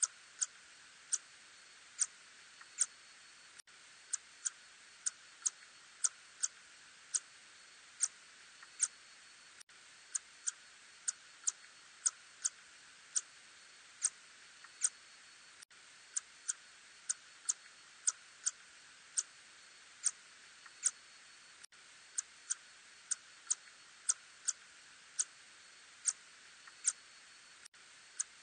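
Ussurian tube-nosed bat calls, heard as a regular train of short, sharp clicks, about one and a half a second, over a faint steady hiss.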